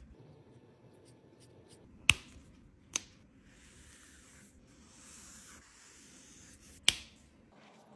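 Marker tip stroking across paper with a soft, scratchy hiss, broken by three sharp clicks: two close together about two and three seconds in, the loudest one near the end.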